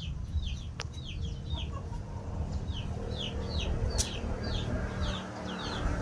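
Chicks peeping over and over, each peep a short high note falling in pitch, about two or three a second, over a steady low rumble. A sharp click comes about a second in and another near the middle.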